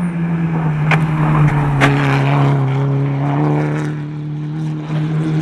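Volkswagen Scirocco race car's engine running hard at high, steady revs on track, its note sinking slowly, with two short sharp cracks about one and two seconds in.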